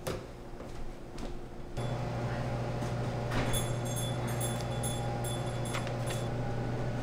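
Quiet room tone, then about two seconds in the steady low hum of restaurant kitchen equipment sets in, with a few faint steady high tones above it. There are a couple of brief papery rustles, one near the end as a magazine page is turned.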